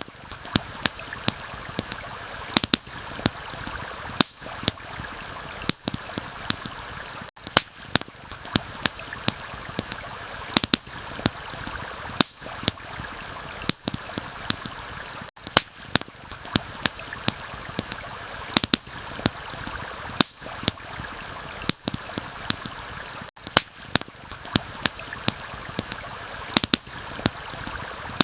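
Campfire crackling, with sharp irregular pops several times a second over the steady rush of a flowing stream. The sound drops out very briefly about every eight seconds.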